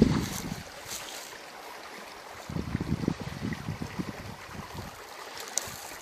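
Wind buffeting the microphone in gusts, at the start and again about halfway through, over a faint steady hiss.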